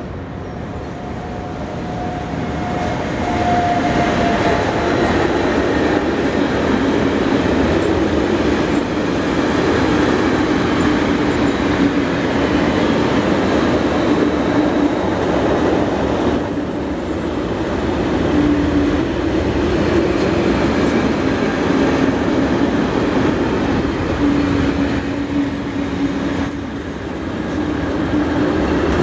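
Electric-hauled freight train passing close by: the sound builds over the first four seconds as the locomotive comes up, then the long string of tank-container and covered wagons rolls past in a steady rumble and rattle of wheels on the rails.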